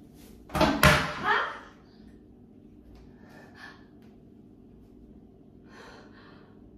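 A woman's sharp gasp, with a short rising vocal squeal, as she steps into a bath of slime. Then a few faint breaths.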